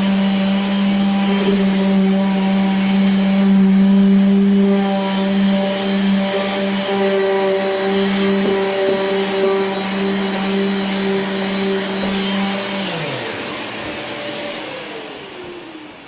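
Festool DTS 400 delta sander running steadily, sanding filled nail holes in MDF trim, then switched off about thirteen seconds in, when its hum drops away. A second motor keeps running and winds down in pitch over the last couple of seconds.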